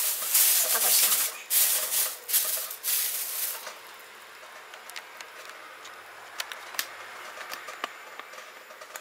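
Thin plastic bag crinkling and rustling as it is handled, with black currants rattling inside it, in loud bursts for about the first three and a half seconds. After that it goes quiet apart from a few small clicks.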